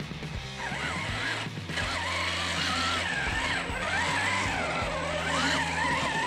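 Redcat Gen8 Scout II RC crawler's electric motor and drivetrain whining as it drives through mud and slush, starting about half a second in, the pitch wavering up and down with the throttle. Background music plays under it.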